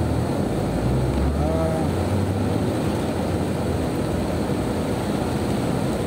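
Heavy rain on a moving car, heard from inside the cabin: a steady hiss of rain and tyre spray over the low hum of the car's engine.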